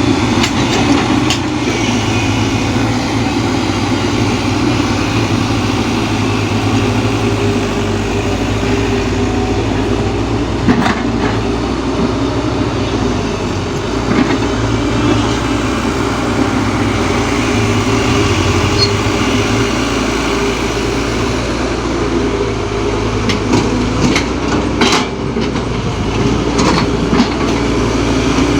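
Heavy diesel engines of a Kobelco excavator and a Sonalika DI 60 RX tractor running steadily, with a few sharp knocks and clatters scattered through, about four in all.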